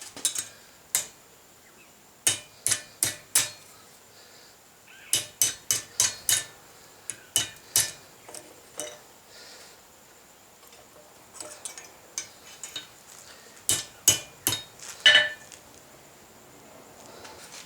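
A hand hammer strikes hot 12 mm rebar steel on an anvil, in quick runs of three to six ringing blows with pauses between them. There are lighter taps a little after the middle.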